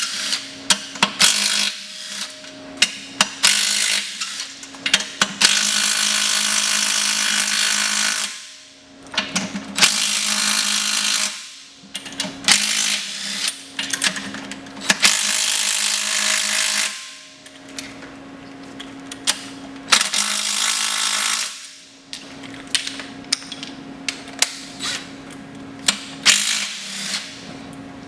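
A power tool running in about five bursts of roughly two seconds each, spinning out the 12 mm bolts of a CD009 transmission's tail housing, with sharp clicks and metal clinks between the bursts.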